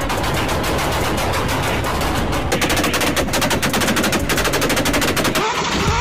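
Tuned Toyota Supra 2JZ inline-six exhausts firing a rapid string of loud pops and bangs, like machine-gun fire. The bangs come quicker and denser about halfway through.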